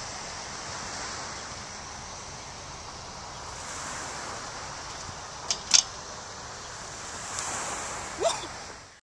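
Wind noise rushing steadily on the microphone. About five and a half seconds in come two sharp knocks close together, and near the end a click with a short rising squeak.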